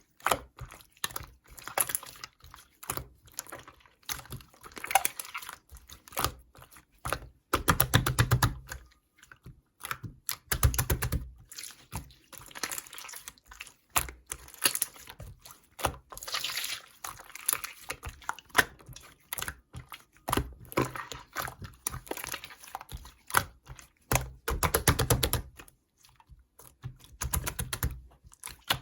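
Slime being squished and pressed by hand: quick sticky clicks and crackling pops, with a few heavier, fuller squelches between.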